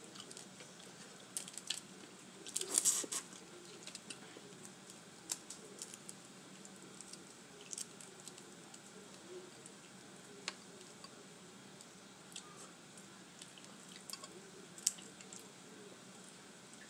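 Whole boiled crawfish being peeled by hand: scattered small wet cracks and squishes of shell, with a denser cluster about three seconds in and a sharp crack near the end.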